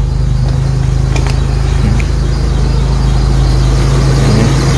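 1995 Daihatsu Feroza's four-cylinder petrol engine idling steadily.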